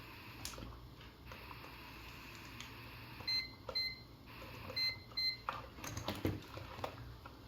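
Digital multimeter giving four short, high beeps as it is set up to measure a capacitor's capacitance, with light handling clicks and knocks from the test leads and component.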